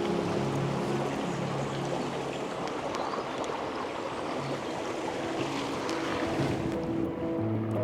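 A steady rushing noise under soft background music of long held low notes. The notes drop out through the middle, and the rushing thins near the end as the notes return.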